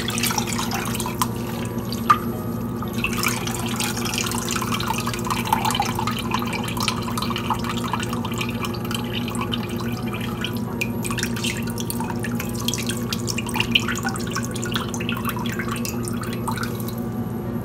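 Water sloshing and dripping as a cloth-wrapped ball of fresh paneer is dipped, squeezed and lifted in a steel bowl of cold water, rinsing the curd, over a steady low hum.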